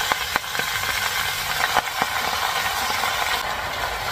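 Leafy sâm đất (Talinum) greens sizzling in hot olive oil and garlic in a stainless skillet, with a steady hiss, while wooden chopsticks stir them, making a few light clicks against the pan.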